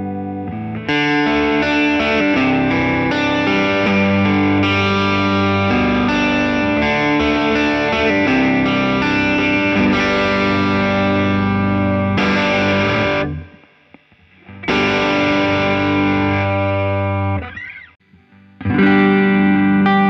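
1970 Gibson ES-330 thinline hollow-body electric guitar with P-90 pickups, amplified, playing chords and melodic lines. The playing stops twice briefly in the second half before starting again.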